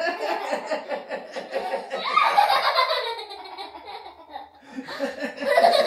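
Laughter in quick, rhythmic bursts, easing off in the middle and starting up again near the end.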